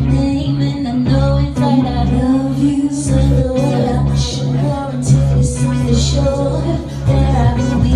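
Pop music with a steady bass line and a female voice singing.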